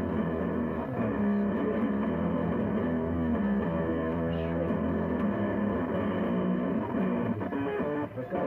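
Background rock music with electric and bass guitar.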